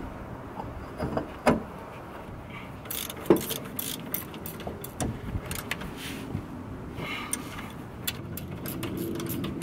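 Hand tools clinking and clicking against metal under a car as the rear axle bolts are fitted and tightened to the differential. There is an irregular run of small metallic clicks, with sharper knocks about a second and a half in and again at about three seconds.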